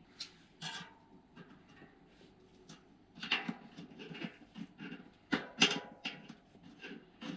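Irregular clicks, taps and short rustles of hands handling a bike wheel and its tubeless valve parts, with a couple of louder knocks in the second half.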